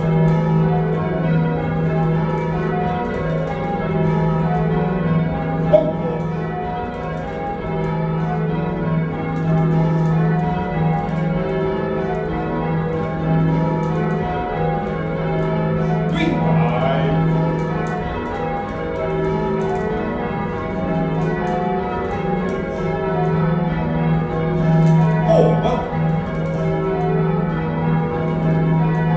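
A heavy ring of six church bells, cast by John Taylor & Co in 1925 with a tenor in E-flat, rung full-circle by rope in a continuous rhythmic stream of overlapping strokes, heard from the ringing chamber below the bells.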